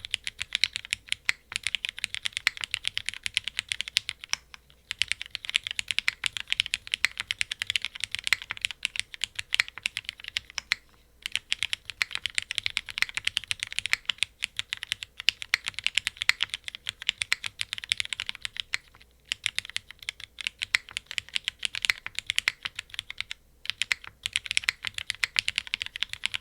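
Continuous fast typing on a plateless-mounted 60% mechanical keyboard with linear Cherry MX Black switches and GMK keycaps: a dense stream of key clicks and clacks, broken by a few short pauses.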